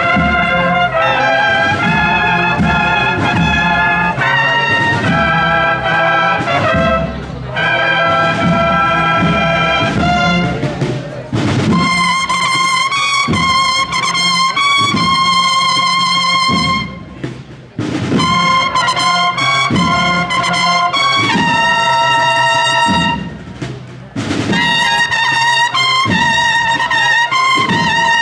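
Brass band with drums playing a march: held trumpet notes with vibrato over steady drum beats, in phrases broken by short pauses about 11, 17 and 24 seconds in.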